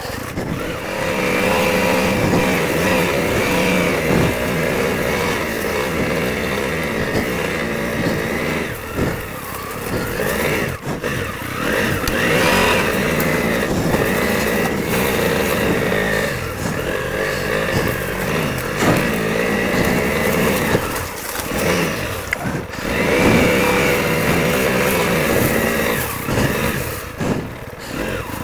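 Honda CRF300 Rally's single-cylinder four-stroke engine running as the motorcycle is ridden slowly along a rough dirt trail, the revs rising and falling with the throttle and dropping briefly several times.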